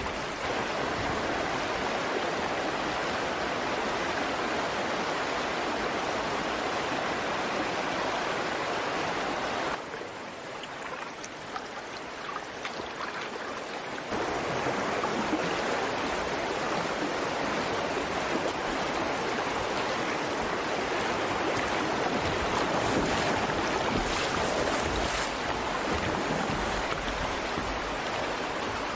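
Steady rushing of white water in a river rapid, briefly quieter for about four seconds some ten seconds in.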